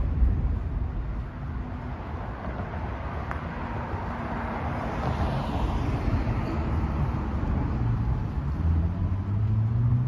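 City street traffic: cars driving past on the roadway, one swelling louder and fading around the middle, and an engine rising in pitch near the end as another vehicle speeds up.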